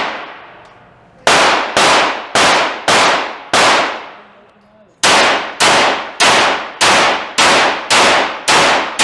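Handgun shots fired in steady strings: five shots about half a second apart, a short pause, then eight more at the same pace. Each shot rings out with a brief echoing tail.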